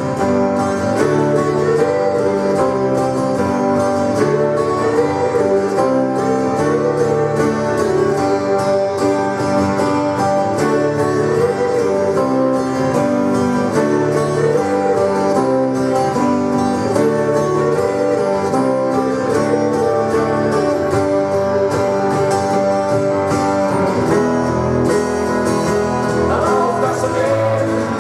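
Live band music with guitars prominent, played at a steady level. A melodic line wavers in pitch over the band, and near the end a higher line bends up and down.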